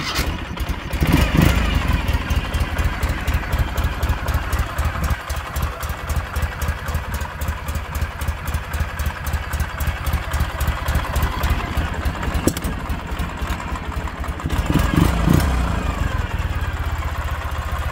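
2008 Ural Tourist's air-cooled flat-twin engine just started on its carburetors without the enricheners while still a little cool, idling with even pulses. It is revved briefly about a second in and again about three seconds before the end.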